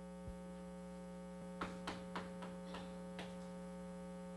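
Steady electrical mains hum from the lecture-hall microphone system, with a quick run of about seven sharp taps of chalk on a blackboard in the middle.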